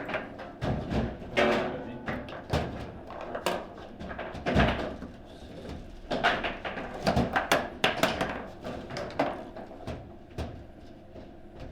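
Table football in play: sharp, irregular knocks and clacks of the ball against the figures, rods and table walls, coming in quick flurries that are busiest from about six to eight seconds in.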